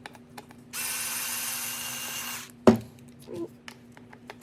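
Cordless power screwdriver running for about two seconds, backing a screw out of an RC buggy's chassis, then stopping. A single sharp knock follows.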